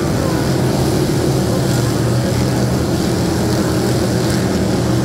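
A field of dirt-track race cars racing around the oval, their engines blending into one steady, loud drone.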